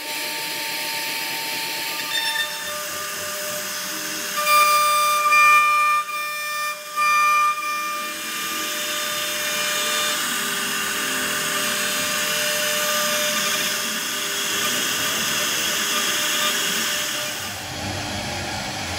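CNC router spindle running while its bit carves a relief pattern into a wooden door panel: a steady high cutting hiss with a whine, louder in a few short spells near the middle.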